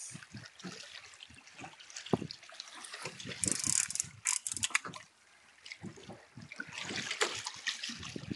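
Water sloshing and splashing against a small boat, with irregular knocks, clicks and rattles of fishing gear being handled on board; a louder splash-like hiss comes about three and a half seconds in.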